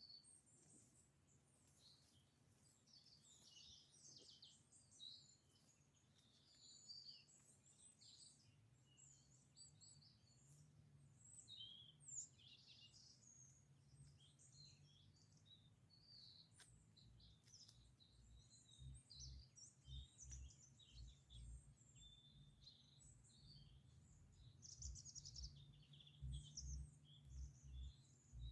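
Several small birds chirping and singing in short, overlapping high-pitched phrases, over a faint low hum. In the second half, soft low thumps come about once a second.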